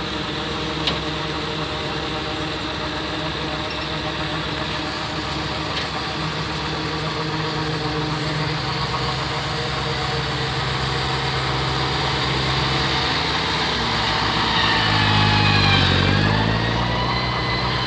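Tractor diesel engine running steadily while it pulls a trailer unloading chopped corn silage. About fifteen seconds in, the engine note dips and climbs back as it gets louder.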